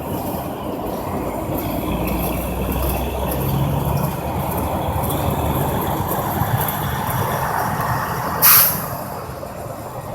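Heavy trucks running past on an interstate, a steady drone of diesel engines and tyre noise that swells heavier a couple of seconds in. About eight seconds in, one short, loud hiss of air, a truck's air brake.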